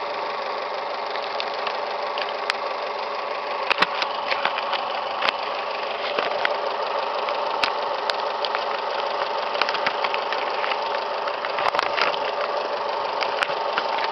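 A 2012 Fiat 500's 1.4-litre 16-valve MultiAir four-cylinder engine idling steadily, heard from the open engine bay, with scattered sharp clicks.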